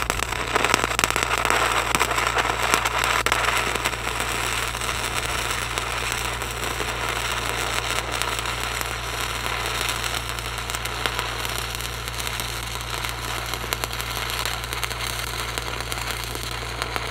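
Stick-welding arc from a 5/32-inch 6010 rod running a pass on steel pipe fence top rail: a steady, harsh crackle with dense fast pops, over a steady low hum.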